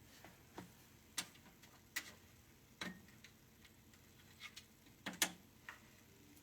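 Faint, irregular light clicks and taps, about ten in all, with no steady rhythm; the loudest pair comes a little after five seconds in.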